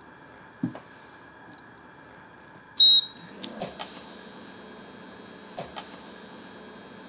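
An induction cooktop being switched on under a pot: a dull knock early, then a short high beep about three seconds in, a few light button clicks, and the hob's steady electrical whine and fan hum setting in and running on.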